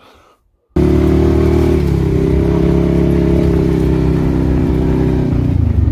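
A vehicle's engine running loud and steady as it drives. It cuts in suddenly under a second in, its note shifts slightly about two seconds in and drops near the end.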